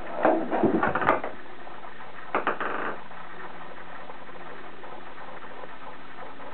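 A kitten's claws scrabbling on the smooth bathtub and a ping pong ball clattering against it, in two quick flurries of taps: one in the first second or so, a shorter one about two and a half seconds in. A steady hiss runs underneath.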